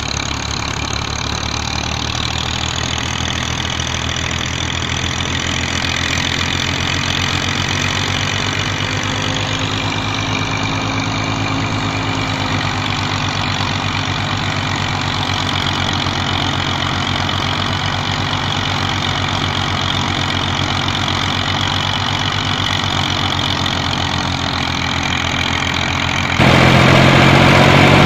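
Massey Ferguson 240 tractor's three-cylinder diesel running steadily under load, driving a wheat thresher through its PTO, with the thresher running along. About two seconds before the end the sound turns abruptly louder and closer to the engine.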